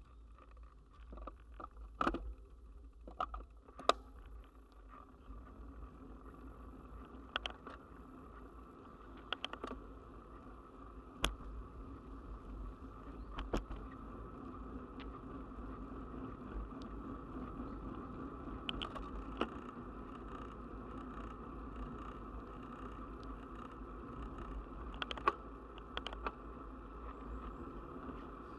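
Bicycle rolling on asphalt, heard through a bike-mounted camera: a steady hum of tyre and wind noise that grows gradually louder, with sharp clicks and rattles every few seconds.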